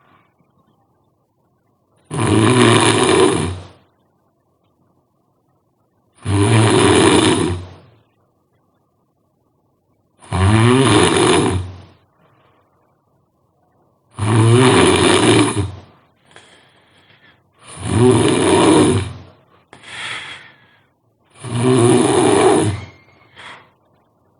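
A person snoring loudly: six long snores of a second and a half to two seconds each, coming roughly every four seconds. A few fainter, shorter sounds come between the later ones.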